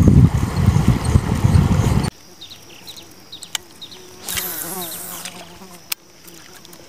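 Wind buffeting the microphone as a loud low rumble, cut off abruptly about two seconds in. After that a quiet riverbank with a few faint bird chirps and a brief buzz in the middle.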